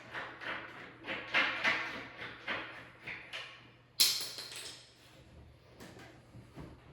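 Irregular scraping and knocking of wooden door parts being handled during a door installation, with one sharp knock about four seconds in.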